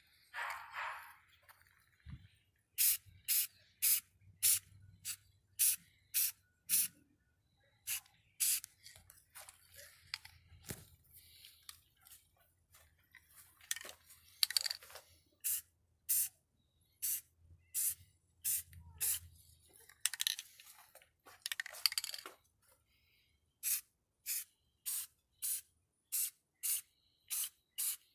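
Krylon aerosol spray-paint can being sprayed in many short hissing bursts, about one or two a second, with a few longer sprays partway through.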